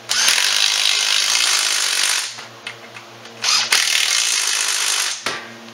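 Cordless power driver with a socket extension running transmission mounting bolts in to snug them up, in two runs of about two seconds each with a short pause between.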